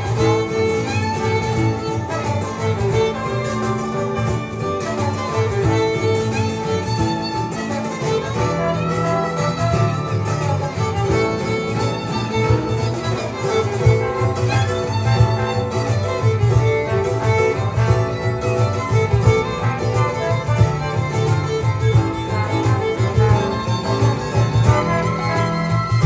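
Live ensemble playing a blues number: a violin carries the lead over bowed strings, acoustic guitar and a steady rhythmic low pulse.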